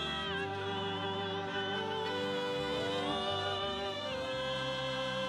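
Live gospel worship music between sung lines: sustained chords with a slow, sliding melody on top, the chords and bass changing a few times.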